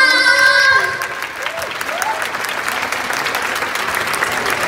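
Audience applauding a live idol-pop group at the end of a song: the singers' last held note stops about a second in, and a steady patter of clapping follows.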